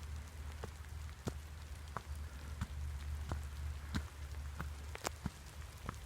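Light rain: scattered raindrops tapping irregularly, a few louder single drops standing out, over a steady low rumble.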